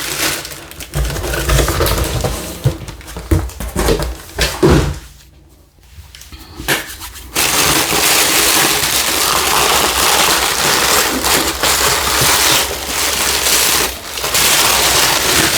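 Honeycomb paper packing wrap being pulled apart and crumpled. There are irregular crinkles and rustles at first, a short lull, then from about halfway through a continuous dense crackling rustle.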